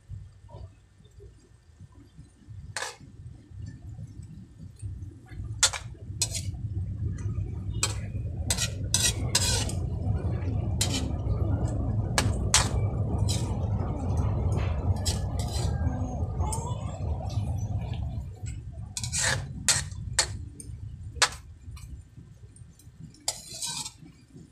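Metal spatula clinking and scraping against an aluminium wok as chicken pieces are stirred, in scattered sharp clicks. A low rumble rises through the middle and fades again before the end.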